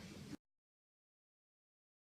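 Near silence: faint room tone for about the first half second, then it cuts off to dead digital silence.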